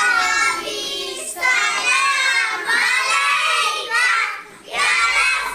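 Young children's voices singing together, in phrases a second or two long with short breaks between them.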